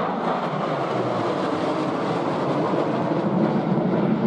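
Jet engine roar from a formation of three fighter jets flying past overhead: a steady rushing noise whose low end swells a little near the end.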